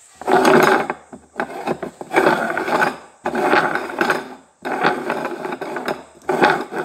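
Upturned bowls scraping and sliding across a wooden tabletop as they are shuffled, in about five rough strokes of a second or so each.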